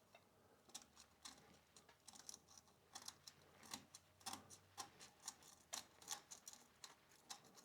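Faint, irregular scratching and ticking, a couple of strokes a second, from a folded strip of emery cloth being rubbed over small electrical contacts to clean them.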